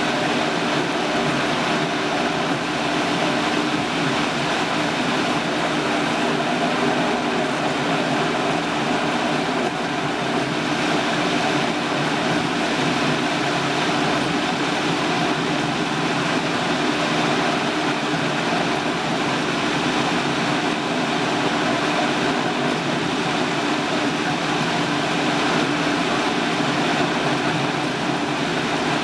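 Vitamix 5200 blender motor running at a steady high speed, churning an already smooth strawberry-banana smoothie of fruit and milk; an even, unchanging motor hum with a whirring rush.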